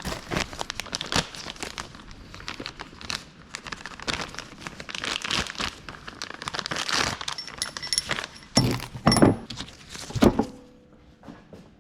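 Crinkling, rustling handling noise with many small clicks, and a few louder knocks about nine to ten seconds in.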